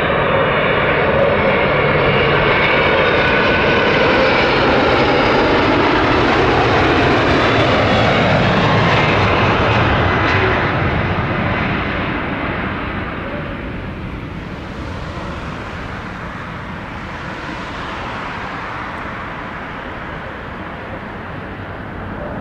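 Widebody jet airliner's engines passing close by, loud for about ten seconds, then fading as it moves away.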